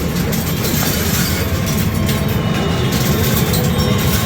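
Steady, dense clatter of coins as a coin pusher machine's shooter fires a rapid stream of coins, over a loud low rumble of arcade din.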